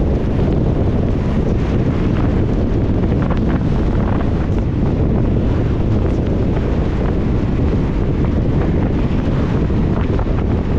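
Steady noise of a car driving in rain: tyres on the wet road and the wind against the car, heaviest in the low end, with faint scattered ticks.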